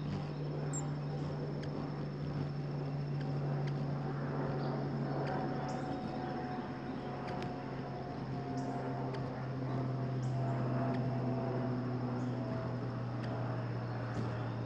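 Hummingbirds at a feeder giving short, high chip notes every second or so, over a steady low drone that slowly drops in pitch and a constant faint high whine.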